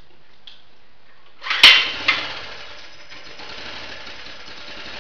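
Small generator's engine, running on wood gas with a squirt of starting fluid, pull-started by its recoil cord. It catches on this second pull about a second and a half in, with a loud burst and a second smaller one, then settles into steady running.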